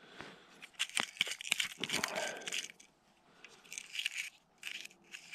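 Faint, irregular crunching and rustling from someone shifting and handling gear on snow-covered ice, with a few sharp crackles in the first two seconds and short rustles later.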